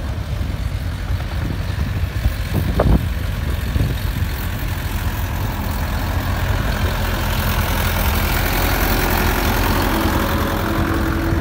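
Vintage farm tractor engine running as the tractor drives up the sand track toward and past the listener, getting a little louder in the second half.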